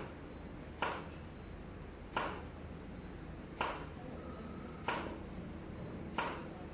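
A sharp click with a short ringing tail, repeating evenly about every 1.3 seconds, five times.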